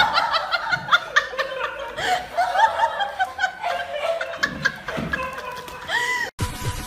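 Several people laughing in quick, overlapping chuckles and snickers. The laughter cuts off suddenly near the end, and music with a steady beat begins.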